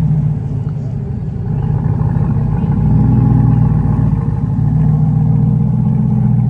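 Chevrolet Corvette C8's V8 through a Borla aftermarket exhaust, a deep steady rumble at low speed as the car drives off, swelling louder about three seconds in.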